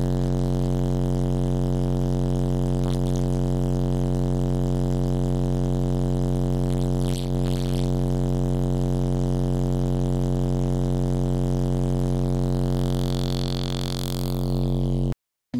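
Two Timpano TPT-3500 car subwoofers on a JP43 D4S amplifier playing a steady, buzzy low test tone at about 145 dB on the SPL meter, heard inside the car's cabin. The tone cuts off suddenly near the end.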